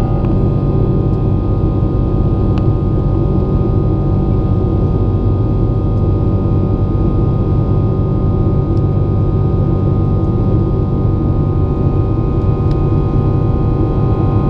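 Aircraft in flight: a steady, loud engine and airflow drone, deep rumble with several unchanging tones running through it.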